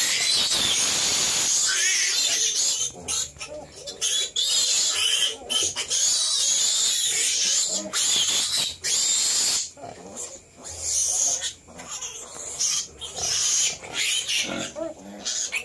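Litter of week-old native piglets squealing, the high squeals coming in spurts with short breaks between them.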